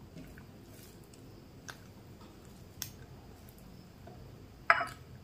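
Fingers mixing rice with leafy greens on a plate: a few faint soft clicks and squishes, then a louder brief wet squelch near the end.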